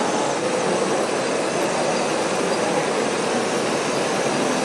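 Steady mechanical whir and rumble of radio-controlled model construction machines (a dump truck and an excavator) working in dirt.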